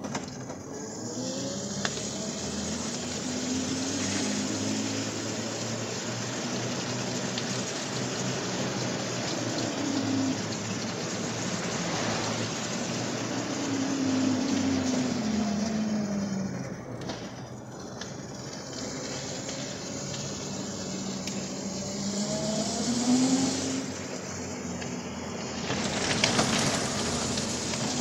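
Homemade electric quadricycle with two 350 W hub motors driving on a wet road: a steady hiss of tyres on the wet surface, with a motor whine that slowly rises and falls in pitch several times.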